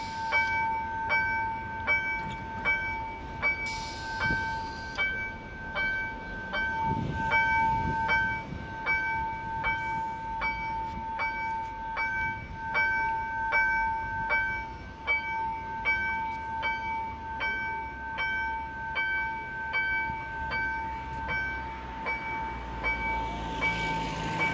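Level-crossing warning bell ringing on and on, about two even strikes a second: the crossing's warning is active. A low rumble rises near the end.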